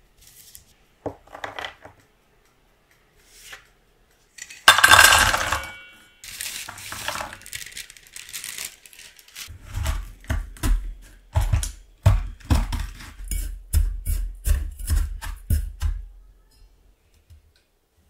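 Wooden rolling pin pounding small crackers and walnuts in a stainless steel bowl, crushing them to crumbs for a cookie crust: about two dull, crunching thuds a second over several seconds. Earlier, about five seconds in, a loud clatter of hard pieces against the metal bowl.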